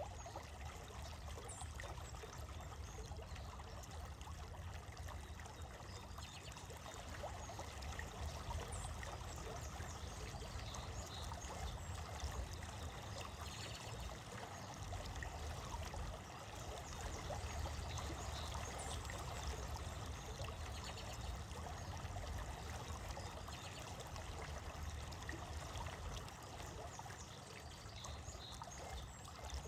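Running stream water trickling and splashing steadily over stones, with a low rumble underneath and small splashes scattered through.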